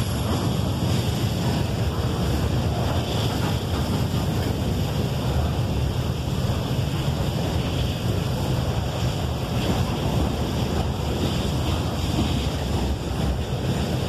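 CSX freight train's hopper cars rolling past at close range: a loud, steady, deep rumble of steel wheels on the rails.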